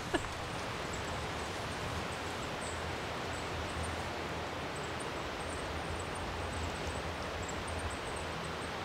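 Steady rush of wind through conifer forest, an even hiss, with faint high-pitched bird chirps now and then.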